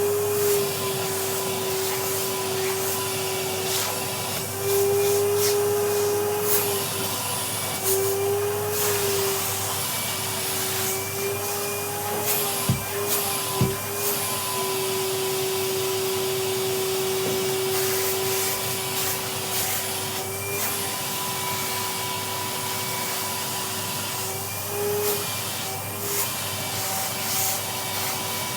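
Vacuum cleaner running with its crevice tool working into an armchair's upholstery. The whine wavers and dips in pitch as the nozzle's airflow is choked and freed. Two sharp knocks sound about halfway through.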